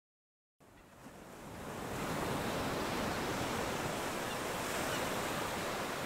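Ocean waves washing on a shore: an even rush of surf that fades in out of dead silence about half a second in, swells over a second or so, then holds steady.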